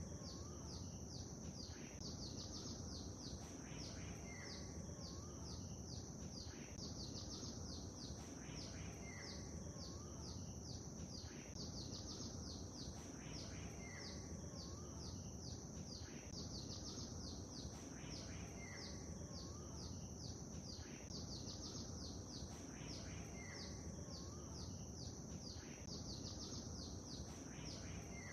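Birds chirping and singing in quick high calls over a steady low wash of lake water. The same set of calls comes back about every four seconds.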